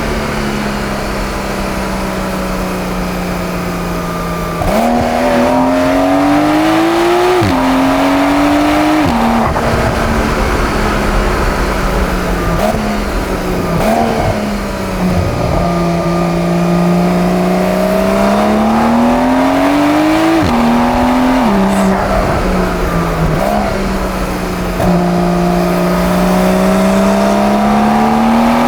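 Porsche 911 Carrera (992.2) twin-turbo flat-six pulling hard through the gears. The engine note climbs and then drops abruptly at each quick upshift, several times, with brief dips where the throttle is lifted.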